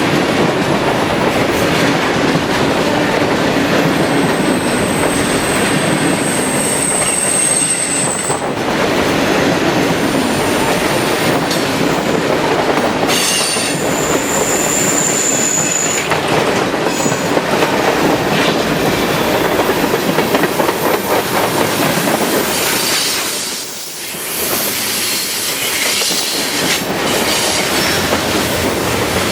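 Freight train cars rolling past close by at speed, wheels clacking over the rail joints, with two high-pitched wheel squeals, the first from about four seconds in and the second around the middle.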